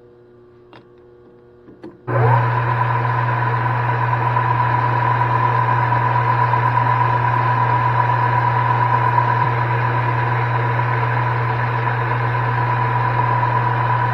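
Metal lathe switched on after a few light clicks about two seconds in, spinning up quickly and then running steadily with a strong hum and a steady whine, as it turns down the end of an aluminum bar.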